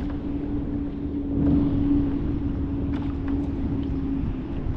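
Wind buffeting the microphone, with a steady low hum running underneath.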